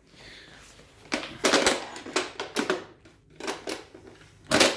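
Hard items being handled and shifted, giving a series of irregular clattering knocks and rattles, with the loudest cluster near the end.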